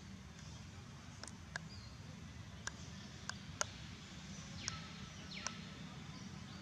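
Faint outdoor ambience: a steady low hum with a handful of sharp ticks scattered through it, and a few faint high chirps near the end.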